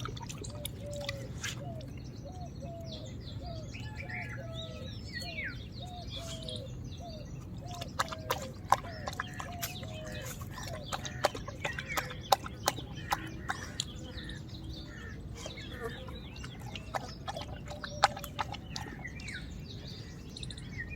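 Outdoor birds calling: a run of short, repeated calls about twice a second for the first several seconds, with higher chirps throughout. Irregular sharp clicks come in from about eight seconds in.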